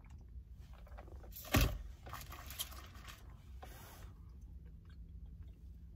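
A thump about one and a half seconds in, then rustling and a short scrape, as a fast-food drink cup is set down and a sandwich is picked up inside a parked car.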